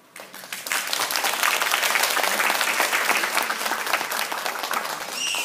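Audience applauding: the clapping starts at once, swells to full within about a second and holds steady.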